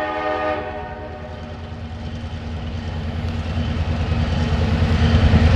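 Diesel locomotive of a freight train approaching, its low engine rumble growing steadily louder; the tail of a horn blast fades out at the very start.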